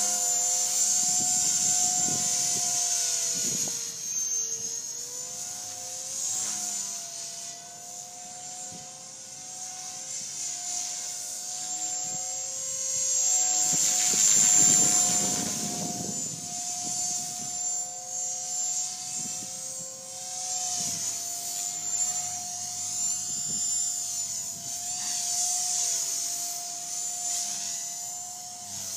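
Blade 450X electric RC helicopter flying aerobatics: a steady high whine from its motor and rotors over whooshing blade noise. The pitch shifts slightly with load, and the sound swells and fades as it moves about, loudest about halfway through.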